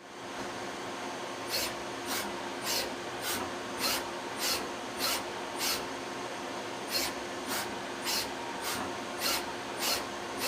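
CNC Swiss-type lathe running with a steady hum and a few held tones. From about a second and a half in, short bursts of hissing noise repeat about every 0.6 seconds, pausing once for about a second midway.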